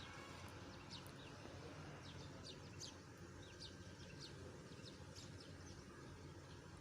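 Faint small birds chirping, many short quick high chirps scattered throughout, over a low steady hiss.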